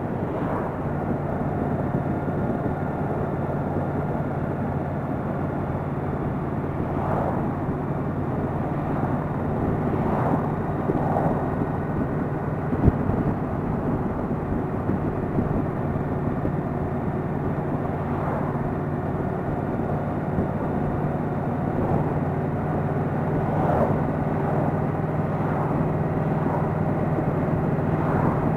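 Yamaha Venture motorcycle's V4 engine running steadily at cruising speed through its stock mufflers, with wind and road noise. A single sharp click about 13 seconds in.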